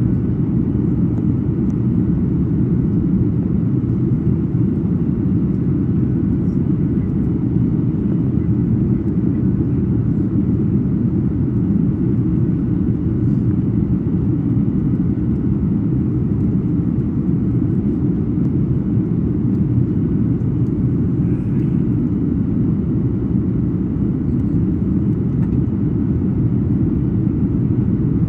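Steady low cabin rumble inside a Boeing 737 MAX 9 in flight: the CFM LEAP-1B engines and the airflow over the fuselage during the descent.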